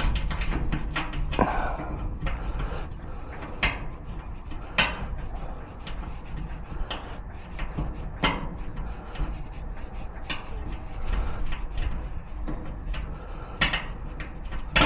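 Lock picks scraping and clicking inside a garage door lock cylinder as it is worked to be picked open, with irregular sharper clicks scattered throughout over a low rumble.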